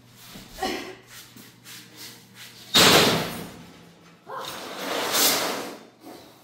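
A large steel sheet banging down onto a steel welding table, one sharp loud clang that rings down over about a second. About a second and a half later comes a longer scraping rush as the sheet slides and settles flat on the tabletop.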